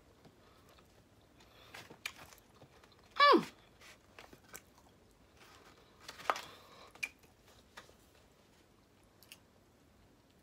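Quiet chewing and small crunches of a snack being eaten, with scattered light clicks and paper rustles. About three seconds in comes a short hum that slides down in pitch.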